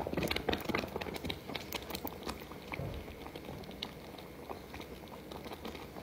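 Pasta water boiling in a saucepan with pastina in it: bubbles popping in quick, irregular little clicks that thin out and get quieter after about two seconds.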